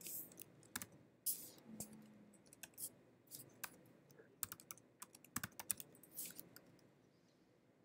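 Faint typing on a computer keyboard: irregular keystrokes in short runs with small pauses between them.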